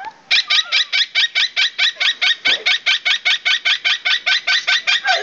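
Pet bird giving a long run of rapid, evenly repeated squawky notes, about six a second, its mimicry of laughter.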